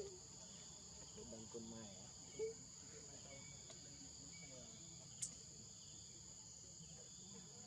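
Steady high-pitched drone of a forest insect chorus, with a single sharp click about five seconds in.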